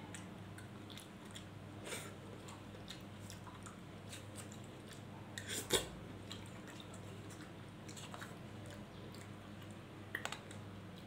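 Small kitchen knife slicing ripe papaya in the hand: soft, wet cutting sounds and faint clicks, with a sharper knock about halfway through and a couple more near the end. A low steady hum runs underneath.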